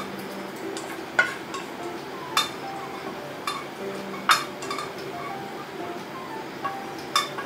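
Tableware clinking at a meal: four or five sharp, separate clinks against dishes, each with a short ring, spread over several seconds. Soft background music plays underneath.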